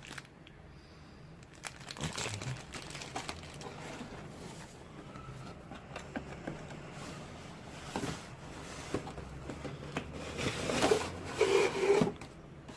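Plastic packaging and box contents being handled during unboxing: crinkling and rustling with scattered light clicks and knocks, busier and louder near the end.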